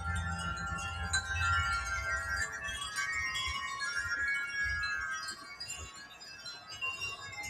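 Wind chimes ringing in gusty wind, many overlapping sustained notes sounding together. Low wind rumble on the microphone is heard in the first couple of seconds and again briefly midway.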